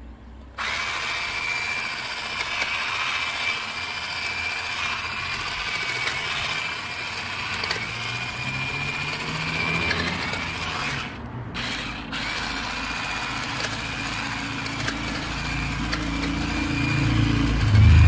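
Parkside PGSA 4 A1 cordless 4 V hedge trimmer running, its reciprocating hedge blade buzzing with a steady high whine as it cuts through shrub stems. It starts about half a second in and cuts out twice briefly past the middle. A low rumble builds near the end.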